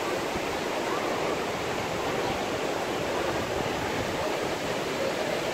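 Ocean surf on a beach: a steady, even wash of wave noise.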